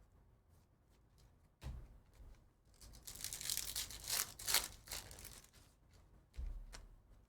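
A foil trading-card pack wrapper being torn open and crinkled for about two seconds, with a dull thump before it and another after.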